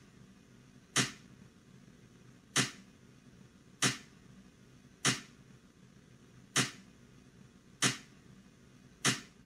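Sudden bursts of noise from a loudspeaker: seven short, sharp hits about every 1.2 to 1.5 seconds, each starting abruptly and dying away within about half a second, over a faint steady low background noise.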